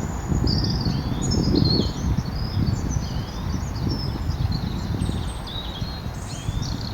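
Small birds chirping and twittering in quick, overlapping short calls, over a steady low rumble.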